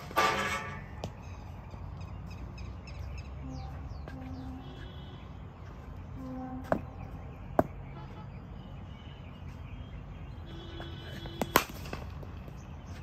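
Cricket bat striking the ball in net practice: two sharp cracks close together near the end, after two fainter knocks about halfway through. There is a louder noise that rings briefly right at the start, and a steady background hum throughout.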